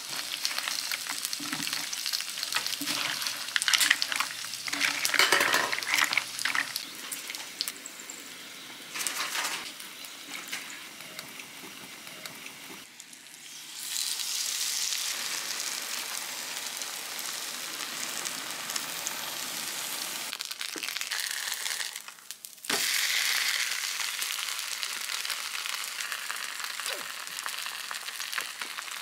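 Sliced rice cakes and leek rounds frying in oil on a flat griddle pan. The first few seconds hold a scatter of knocks. From about halfway a steady sizzle takes over and keeps going, with a brief break near the end, as a poured white liquid fries into a crisp lacy layer.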